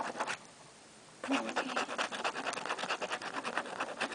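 A coin scraping the coating off a scratch-off lottery ticket in rapid back-and-forth strokes. The scraping stops for about a second soon after the start, then resumes.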